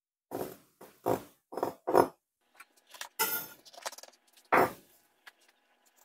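Bell pepper rings set down and knife cuts through bell pepper onto a bamboo cutting board: a series of short knocks on the wood, about five in the first two seconds, then a few more, spaced apart.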